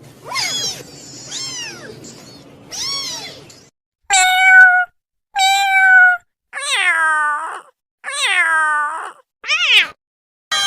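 A cat meowing three times, each call rising and falling in pitch, over a low background hum. Then a different cat meows loudly five times, with silence between calls: the first two are held on one pitch and the last three fall away.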